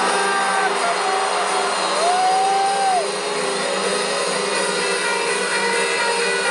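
Arena crowd noise over a sustained low keyboard drone as the song's intro builds, with a long whistle that rises, holds and falls about two seconds in.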